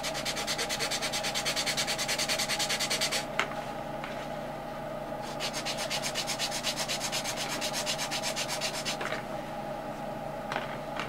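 Hand sanding the end of a laser-cut MDF bridge span, with quick, even back-and-forth strokes of abrasive on wood, taking material off so the piece sits fully down in place. There are two bouts of sanding: the first stops about three seconds in, and the second runs from about five seconds to about nine seconds.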